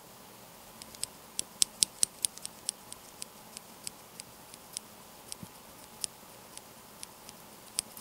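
Cherry MX Black linear switch with a keycap, pressed repeatedly by hand: a quiet, uneven run of light, sharp clacks, about three a second, starting about a second in. It has no click mechanism; the sound is the keycap and stem bottoming out and returning.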